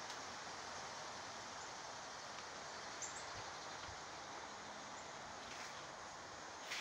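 Steady hiss of storm wind through trees and leaves, with a few faint, short high chirps.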